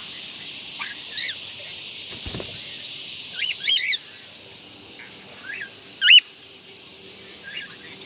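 Cockatiel calling in short whistled chirps that rise and fall in pitch, scattered through, the loudest about six seconds in and again at the very end. A steady high hiss underneath stops about halfway through.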